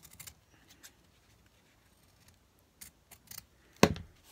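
Fabric scissors snipping fabric: a few short, scattered snips, then one much louder snap near the end.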